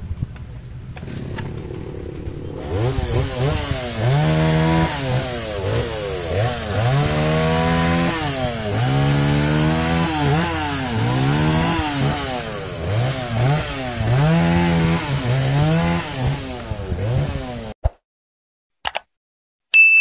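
Petrol chainsaw revving up and down over and over as it cuts through the branches of a fallen tree. It stops abruptly near the end, followed by a click and a short bell-like ding.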